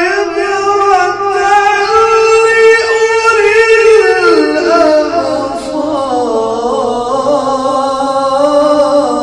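A man's voice reciting the Quran in the melodic, maqam-based tajweed style, drawing out one long ornamented phrase. The pitch wavers and steps up a little about two seconds in, then slides down in stages through the second half.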